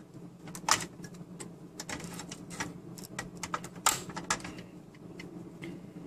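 Irregular clicks and small knocks of plastic cable connectors and wires being handled and plugged into a computer motherboard, with two sharper clicks, one about a second in and one about four seconds in.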